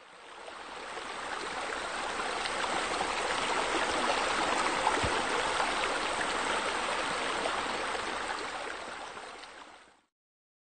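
Running, splashing water, a steady crackling rush that fades in over about two seconds and fades out near the end.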